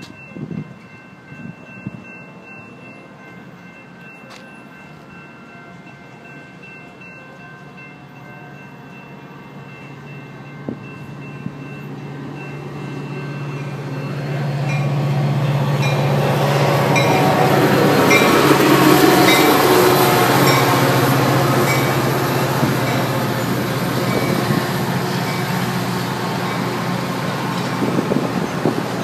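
Metra F40PHM-2 diesel locomotive approaching with its bilevel commuter coaches. Its engine grows louder from about ten seconds in, then the cars roll past close by with a steady loud rush of wheel and car noise.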